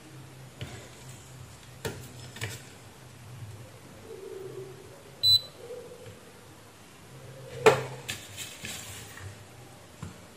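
Multimeter test probes clicking and tapping against components on a circuit board, with a short high beep from the digital multimeter about five seconds in and a louder knock near eight seconds.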